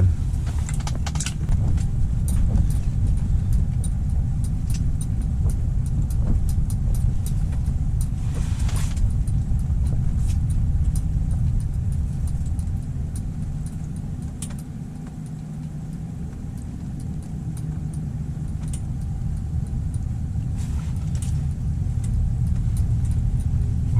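Strong wind buffeting the microphone on open ice: a loud low rumble that swells and eases, easing off about halfway through, with scattered light clicks.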